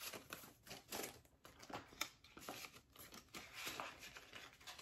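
Paper banknotes rustling as they are handled and slid into a clear plastic pouch in a ring binder: a faint, irregular run of soft crinkles and scrapes.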